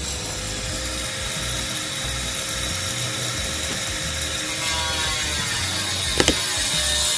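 Angle grinder fitted with a Ridgid diamond metal-cutting wheel, running steadily as it cuts through a trailer's aluminum outer skin: a high whine over a hiss. Its pitch sags slightly about five seconds in, and a sharp click comes a second later.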